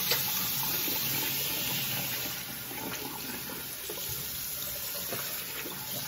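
Water running from a tap into a sink, with light splashing as wet hands rinse a cream face mask off the face.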